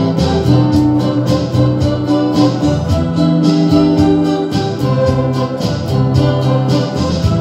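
Contemporary jazz played on electric guitar and organ-like keyboard: held chords that change every second or two over a steady beat of about four high cymbal-like strokes a second.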